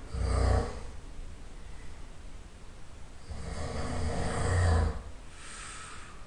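A person snoring loudly in a slow rhythm: a short snore right at the start, then a longer snore that grows louder for about a second and a half, followed by a fainter, airy breath out.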